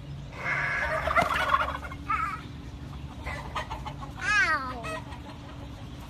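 Chickens clucking and squawking, with one louder, arching call a little past four seconds in.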